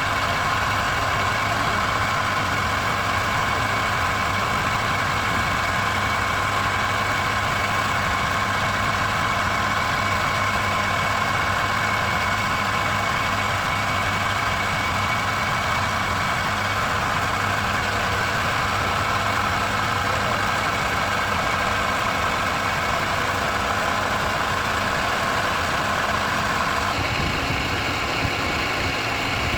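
A steady mechanical hum of a motor running, with its tone shifting slightly near the end.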